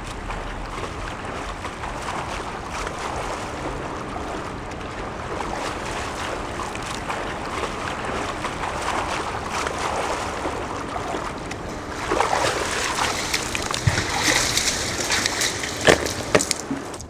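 A swimmer stroking through a pool: water splashing and sloshing, steady and fainter at first, then louder with sharp, irregular splashes in the last few seconds as the swimmer comes close.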